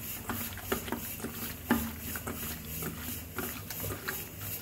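Raw chicken gizzards being squeezed and mixed by hand in a wet marinade in a stainless-steel bowl: a run of irregular wet squelches and small clicks.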